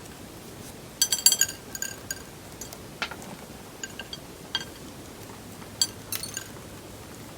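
Small hard objects, glass or ceramic-like, clinking and tapping together: a quick rattle of ringing clinks about a second in, then several single clinks spread through the rest.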